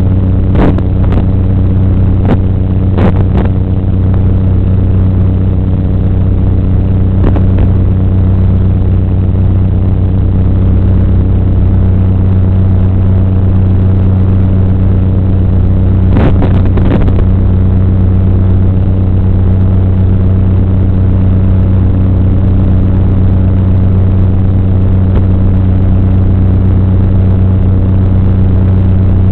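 Steady, loud electrical buzz on the FPV quadcopter's analog video-link audio, unchanging in pitch, with a few short crackles of static in the first few seconds and again about halfway through.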